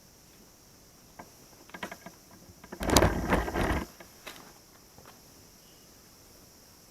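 A few sharp mechanical clicks and knocks, then a loud, harsh mechanical rattle lasting about a second, followed by a couple more scattered clicks.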